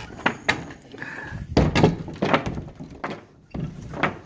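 A barn door banging: several dull thunks and knocks, about five, spread unevenly over a few seconds.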